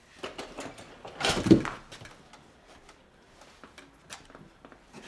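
A brief scraping rustle about a second and a half in, then faint, scattered clicks and taps from handling work on the chair.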